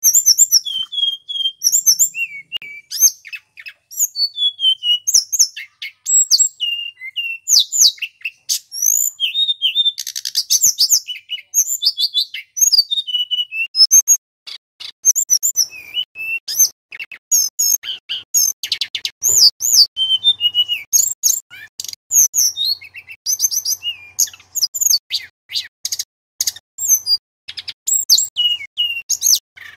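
Male tledekan gunung, a blue flycatcher, singing a loud, fast and varied song: short high whistles, chirps and gliding notes strung into rapid phrases with brief pauses, with a quick rattling trill about a third of the way in and another past the middle.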